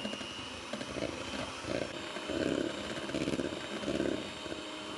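Electric hand mixer whipping egg white for meringue: the motor runs steadily with a high whine, and the beaters' churning in the bowl swells and falls in a slow rhythm.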